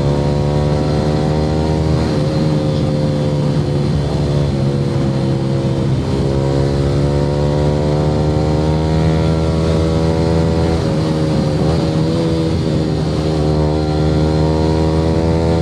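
Yamaha R15 V3's single-cylinder engine running through an aftermarket Akrapovic exhaust while riding, holding a fairly steady pitch that rises gently and dips briefly a few times with small throttle changes.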